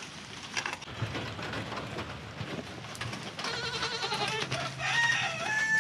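Young buck goats bleating: several overlapping wavering bleats start about three and a half seconds in, and one long steady bleat comes near the end.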